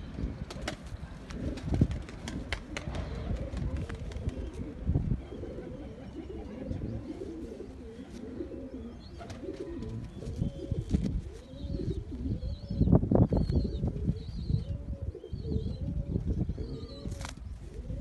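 Domestic pigeons cooing over and over in short rising-and-falling coos. Rustling and handling noise sits close to the microphone, and faint high chirps come in during the second half.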